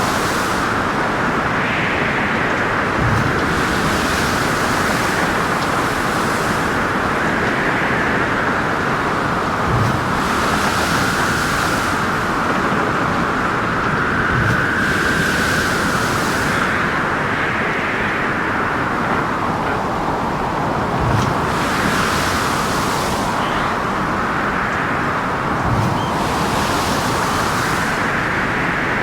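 Storm at sea: a steady roar of wind and waves, with a howling wind tone that rises and falls every few seconds and hissing surges of breaking water and spray every few seconds.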